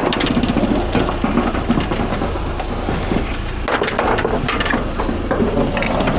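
Scrap metal, a barbecue and bikes, rattling and clattering as it is handled and loaded, a dense run of small knocks and clanks over a steady low rumble.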